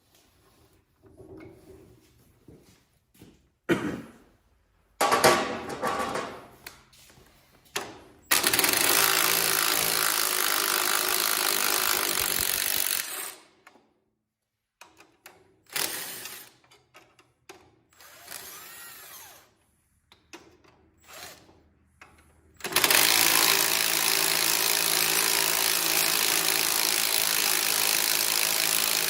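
Power drill running in two long steady stretches, roughly five and six seconds, turning out the cylinder head bolts of a Cub Cadet 127's engine. Short clanks and rattles of handled tools and parts come between the runs.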